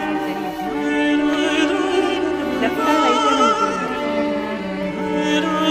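Background music with long sustained notes and a singing voice.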